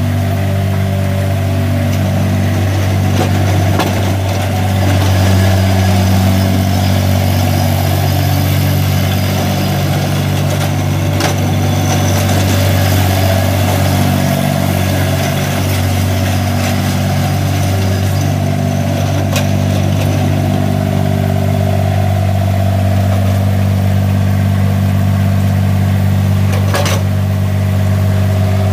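Kubota D1105 three-cylinder diesel engine of a 2016 Jacobsen AR3 rotary mower running at a steady speed, with a few brief clicks.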